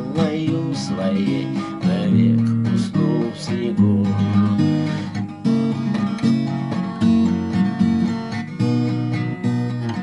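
Acoustic guitar strummed in a steady rhythm, chords changing over a moving bass line: the instrumental close of a song.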